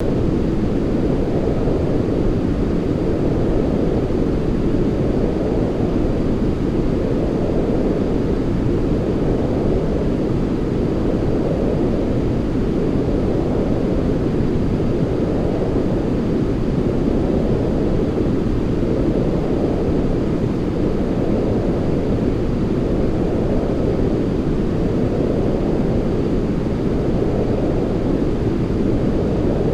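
Steady white-noise sleep sound, a deep, even rushing noise weighted to the low end, gently swelling and easing every few seconds.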